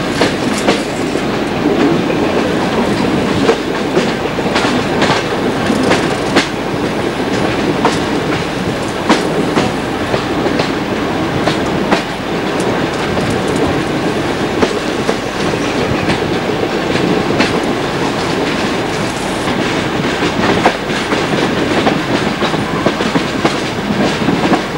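Passenger train running along the track, a steady rumble with an irregular stream of sharp clicks from the wheels passing over rail joints, heard from an open carriage window.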